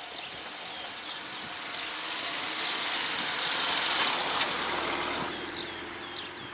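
A small hatchback car drives over the level crossing and passes close by. Its tyres and engine swell to a peak about four seconds in, with a single sharp click just after the peak, then fade as it moves away.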